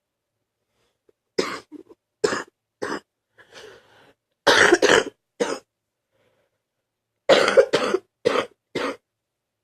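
A person coughing wet, chesty coughs, bringing up mucus while sick. The coughs come singly and in short runs with pauses between them, and the loudest come about halfway and again near the end.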